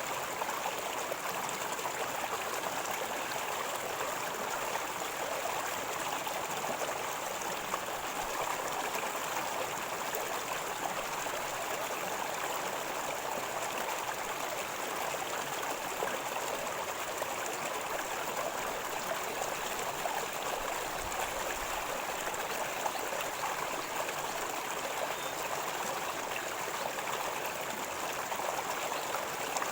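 River water gurgling in a steady, unbroken rush.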